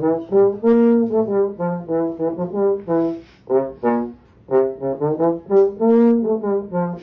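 Music: a brass melody, trombone-like, made of short stepping notes; the same short tune is played twice.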